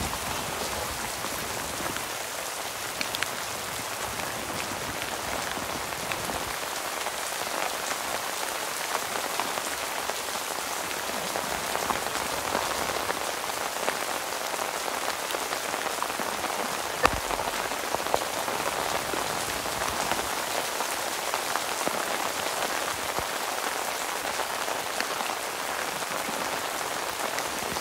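Steady rain falling on a lake's surface: an even hiss with scattered small drop ticks, unbroken throughout.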